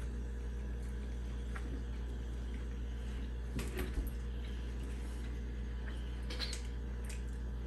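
Quiet room tone with a steady low hum, and a few faint eating and handling noises from people chewing sandwiches, around four seconds in and again near the end.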